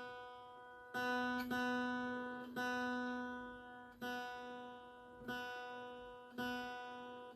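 Ten-string viola caipira strumming the same chord about seven times at uneven intervals of roughly a second, each strum left to ring and fade.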